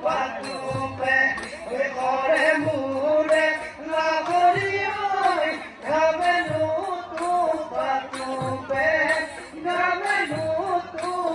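Live Bihu music: a song sung over dhol drumming, with the drum's low strokes dropping in pitch about once a second.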